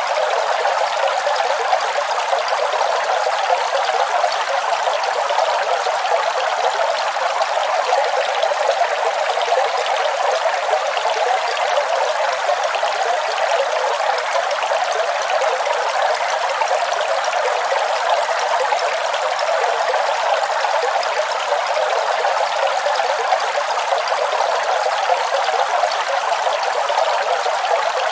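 Waterfall: a steady, unbroken rush of falling water, thin and splashy with no deep rumble.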